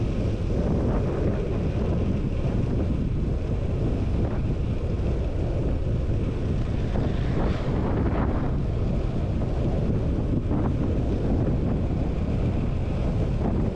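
Wind buffeting the microphone of an action camera on a moving road bike: a steady low rush with no letup.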